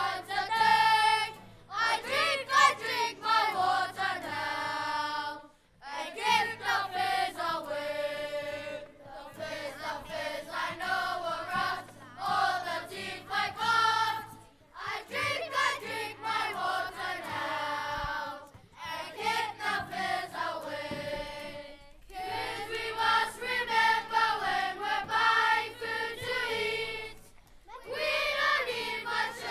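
A woman and a group of children singing a song together, in sung lines separated by short breaks.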